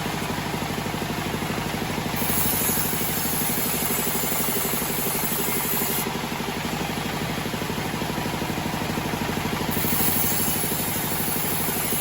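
The engine of a homemade band sawmill runs steadily with a fast, even pulse. A higher hiss joins it about two seconds in and again near the end.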